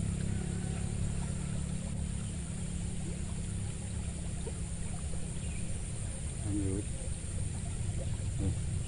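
A motor engine running steadily, a low, even hum that holds at one pitch.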